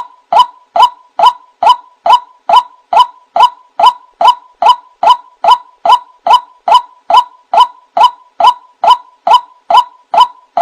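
White-breasted waterhen's 'ruak' call as a bird-lure recording: short identical notes repeated evenly, about two and a half a second.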